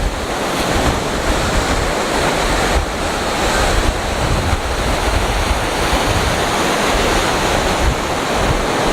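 Rough surf crashing against coastal rocks, with strong wind buffeting the microphone and adding a heavy low rumble.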